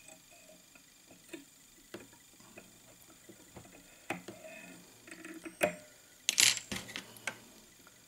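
Quiet, scattered small clicks and light metallic taps as a whip-finish tool ties off the thread on a fly held in a fly-tying vise. About three-quarters of the way through there is a louder short rasping burst, then a few more clicks.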